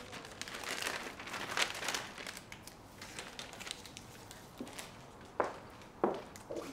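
Crinkling and rustling as a comic book is handled, then a few separate light clicks and knocks near the end.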